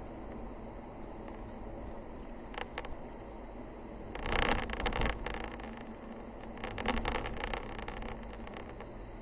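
Vehicle driving, a steady low road rumble and hiss, with two spells of crackling rattle, one about four seconds in and a longer one about seven seconds in.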